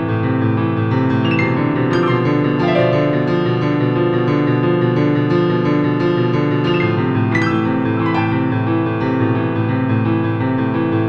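Background piano music: sustained chords held and ringing, with a new chord struck about two seconds in and again a little past the middle.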